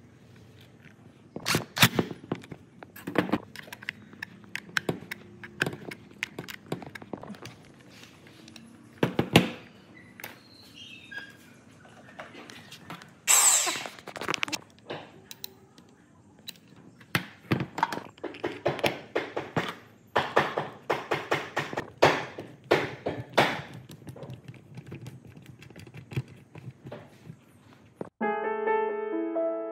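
Irregular knocks and clicks of hand tools and metal parts being handled, with a short hiss about halfway through and a quick run of clicks later on. Piano music starts near the end.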